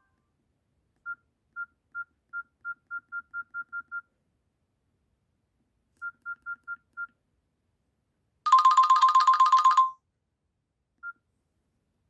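Nokia C5-00 electronic phone alert tones: a run of short high beeps that come faster and faster, a pause, then five quick beeps. These are followed by a louder burst of rapid trilling lasting about a second and a half, and one last short beep.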